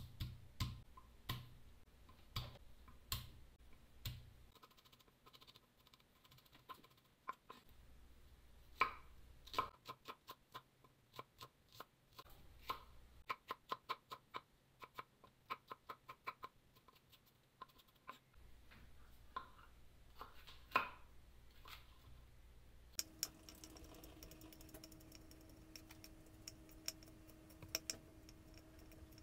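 Kitchen knife chopping on a wooden cutting board: irregular sharp taps of the blade on the wood, in quick runs of several a second, as garlic, onion and bell pepper are diced. A faint steady hum comes in about three-quarters of the way through.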